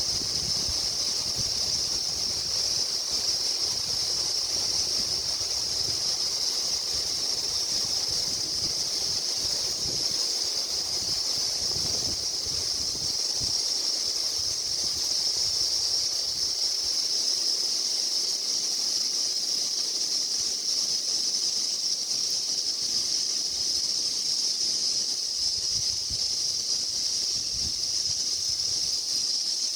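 Chorus of cicadas in the Australian bush: a loud, steady, high-pitched drone that never pauses, with some low wind rumble on the microphone beneath it.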